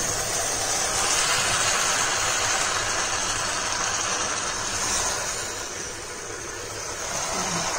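Boiled macaroni and chicken masala being stirred with a spatula in a hot, steaming frying pan, over a steady hiss with a low hum underneath.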